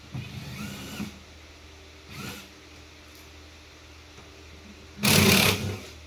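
Drill driver with a Phillips bit whirring in three short runs as it backs screws out of the sheet-metal evaporator box cover of a Coleman Mach RV air conditioner. The motor's pitch rises and falls in each run. The first run lasts about a second, the second is brief, and the third, about five seconds in, is the loudest.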